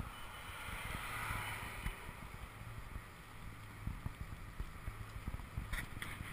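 UPPAbaby Vista stroller rolling along a concrete sidewalk: a low rumble from the wheels with small irregular knocks, carried through the frame to a camera mounted on it.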